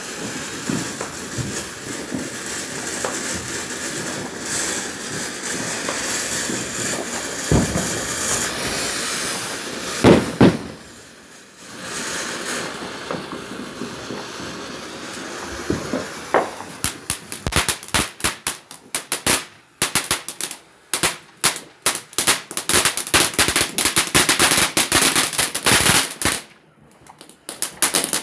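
A lit consumer firework going off: a long hiss with a couple of separate bangs, then about halfway through a rapid string of sharp crackling bangs lasting several seconds, which stops shortly before the end.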